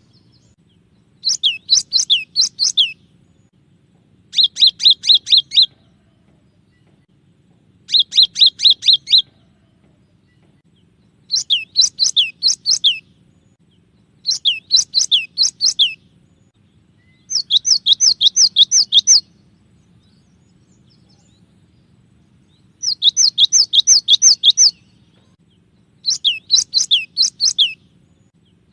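Cinereous tit (gelatik batu) singing: eight loud phrases, each about a second and a half of rapid, repeated high whistled notes that slur downward, separated by pauses of one to three seconds.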